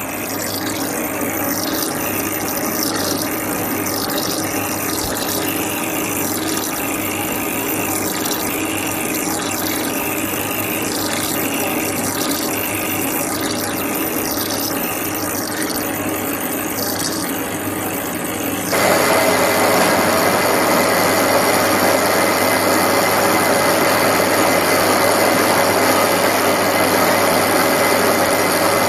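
Lathe turning a metal valve ball: a steady cutting noise with a rhythmic swish about once a second. About two-thirds through it jumps louder to an even, dense machine noise with a faint high whine.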